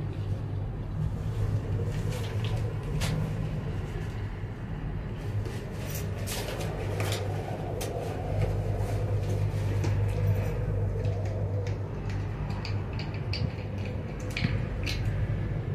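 Inside a moving Maokong Gondola cabin: a steady low hum from the ride along the cable, with scattered light clicks and creaks from the cabin, most of them in the middle and near the end.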